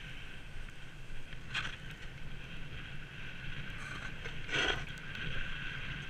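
Snowboard sliding through soft snow: a steady hiss of snow under the board, with wind rushing on the microphone. Two louder swishes of the edge biting into a turn, the first about a second and a half in and the second, the loudest, a little past the middle.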